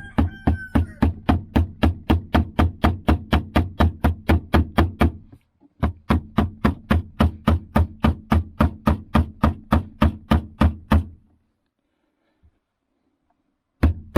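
Rapid, even hammer blows driving a screw into wood, about four or five strikes a second. They come in two runs of about five seconds with a short break between, stop about eleven seconds in, and start again near the end.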